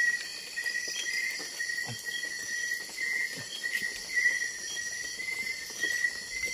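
Night chorus of insects, crickets chirping steadily at several pitches at once, with a few soft rustles and knocks underneath.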